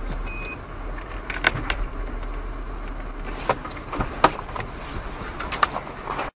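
Steady low hum of a car's cabin with the car stopped, broken by a scattering of sharp clicks and knocks. The sound cuts off suddenly near the end.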